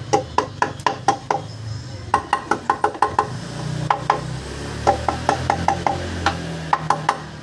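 Rubber mallet tapping repeatedly on a Yamaha Sniper 150's stuck clutch cover to knock it loose: quick runs of sharp knocks, several a second, with short pauses between runs, over a low steady hum.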